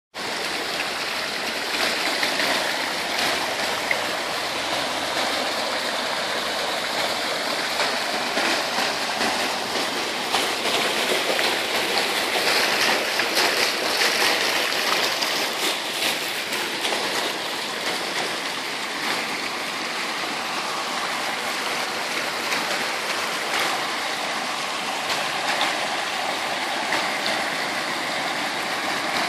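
Fountain water jets splashing steadily into the pool of a stone basin, a little louder for a few seconds midway.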